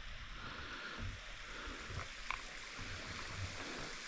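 Small mountain waterfall rushing: a steady wash of falling water.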